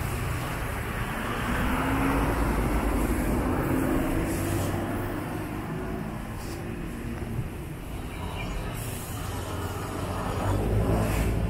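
Street traffic: a steady low rumble of passing vehicles, with one engine note rising in pitch as a vehicle goes by in the first few seconds.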